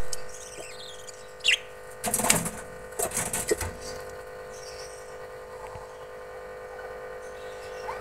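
Budgies moving in a nest box: a single short rising chirp about a second and a half in, then two bursts of rustling and scuffling as the birds shift over the chicks. A loud knock comes right at the start, and a steady hum runs underneath.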